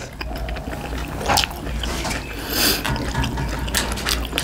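Close-up eating sounds: momos being chewed, with many small clicks and taps and a short hiss about two and a half seconds in.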